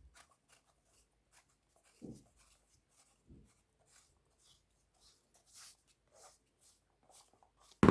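Quiet handling noise: faint clicks, taps and rubbing as the plastic parts of a phone lighting stand kit are turned and fitted, with a couple of slightly louder soft knocks about two and three and a half seconds in.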